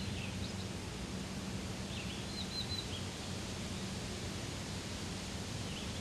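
Outdoor natural ambience: a steady hiss of background noise with a faint low hum, and a few faint high bird chirps about two seconds in and a short chirping trill near the end.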